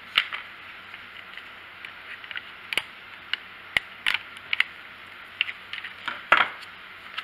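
Irregular small metal clicks and taps of needle-nose pliers working the throttle linkage rod off a Stihl chainsaw's carburetor. There is a sharp click near the start and the loudest snap comes about six seconds in.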